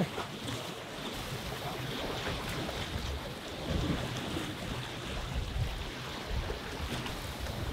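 Small waves washing and splashing against the boulders of a rock jetty, with wind buffeting the microphone.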